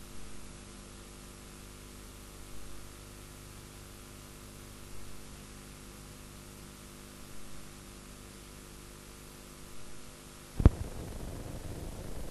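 Steady electrical mains hum and hiss of a dead-air TV broadcast feed, with a faint soft swell about every two and a half seconds. About ten and a half seconds in comes a single sharp pop, followed by a louder crackling hiss.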